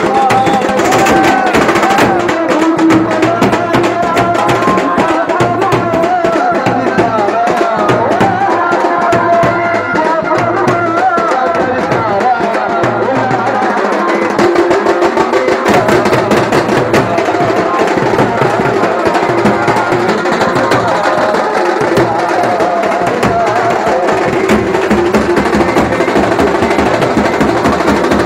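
A street band plays loud, fast drumming with a wavering melody line over it, for dancing. The low drum pattern shifts about halfway through.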